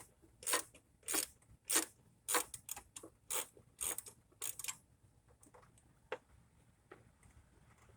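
Small ratchet wrench clicking in short strokes, about one and a half a second, as it works a 10 mm EGR valve bolt in a tight spot; the clicking stops about five seconds in, leaving a few single clicks.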